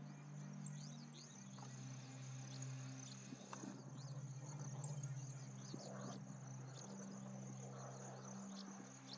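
Faint insects chirring: a steady high buzz broken by many quick, falling chirps. Under it runs a soft, low, held music note that steps in pitch now and then.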